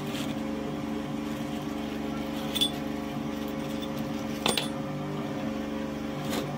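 A steady low hum with several fixed pitches runs throughout, under a few light clicks and crinkles as a clear plastic bag of small parts is handled, about two and a half, four and a half and six seconds in.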